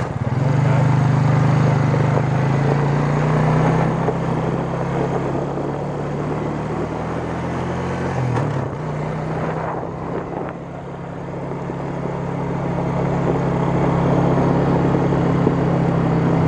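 ATV engine running steadily while the four-wheeler is ridden, a low drone under rushing noise. The engine note changes briefly about eight seconds in, and the sound dips around ten seconds before building back up.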